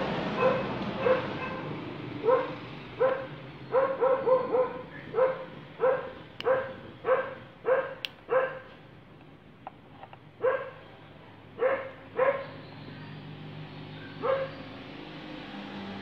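A dog barking repeatedly: a quick run of short barks, about two a second, then a short pause and a few more spaced barks.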